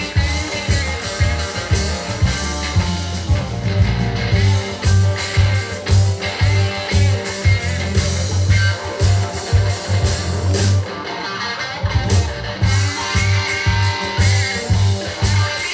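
Rock music with guitar over a heavy pulsing bass, played back through a Canton GLE 70 loudspeaker. The bass drops out briefly about eleven seconds in.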